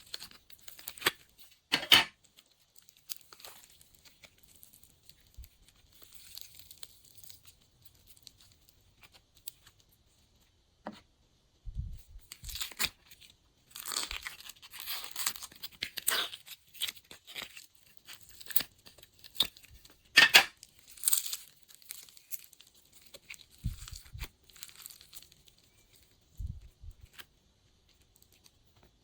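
Glossy slime being squished and stretched by hand, making irregular sticky crackles and pops with quiet gaps between them.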